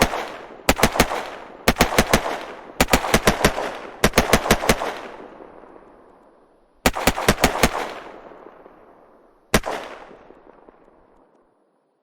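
Automatic gunfire sound effect: short bursts of several rapid shots, about eight a second, each burst followed by a long echoing tail. A single shot comes near the end.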